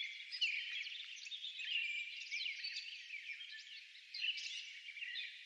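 Dense chorus of many small birds chirping and whistling at once, short rising and falling calls overlapping without a break.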